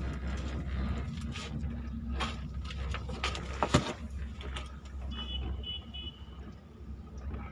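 Steady low rumble of a moving ropeway gondola, heard from inside the cabin with wind on the microphone and a few knocks and rattles; the loudest is a sharp knock just before four seconds in. Three faint short high beeps come about five seconds in.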